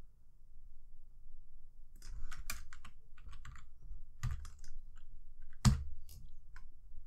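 Computer keyboard keys tapped in a short irregular run of single presses, starting about two seconds in, with one louder key strike near the end.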